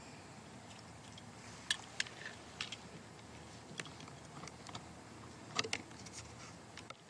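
Footsteps crunching on dry leaves, a few irregular sharp crunches with the loudest pair about two thirds of the way through.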